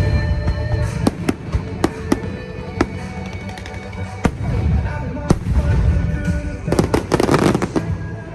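Fireworks going off in a run of sharp bangs, with a dense burst of crackling about seven seconds in. Music plays underneath.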